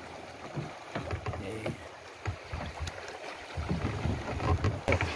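Water and wind around a small wooden outrigger fishing boat at sea, an irregular wash with low rumbling buffets that grow stronger in the last second and a half.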